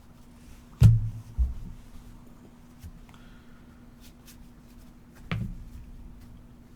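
Trading cards being handled and set down on a table: a few knocks and light taps, the loudest about a second in, another soon after and one more near the end, over a faint steady hum.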